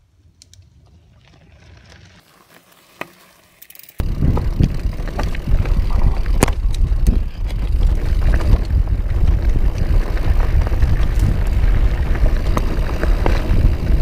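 Specialized Rhyme FSR plus-tire mountain bike riding fast over a loose, rocky trail, heard from a camera mounted on the bike: a loud low rumble with many sharp clicks and rattles from the stones. It starts suddenly about four seconds in, after a quieter stretch.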